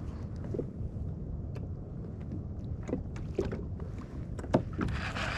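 Water lapping against a fishing kayak's hull, with scattered light knocks and clicks over a low wind rumble on the microphone, and a short rush of hissing noise near the end.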